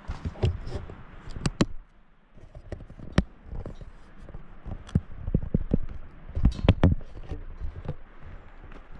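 A hiker's footsteps on a trail: irregular scuffs and sharp knocks, bunched close together about six and a half seconds in, over a steady hiss.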